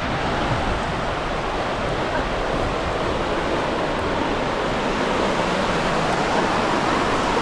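Steady, even rushing noise with no distinct events, beginning abruptly at a cut.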